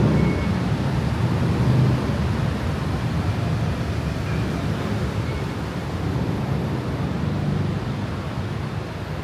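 Steady street traffic noise, a low rumble of passing vehicles that eases slightly toward the end.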